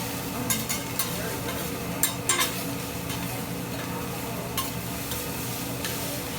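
Food sizzling steadily on a hibachi griddle, with a few sharp clicks and clinks, the loudest a cluster about two seconds in.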